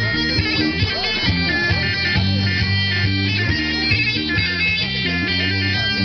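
Loud horon dance music in the Black Sea style: a fast, ornamented tulum (bagpipe) melody over a steady low drone, playing an instrumental break between sung verses.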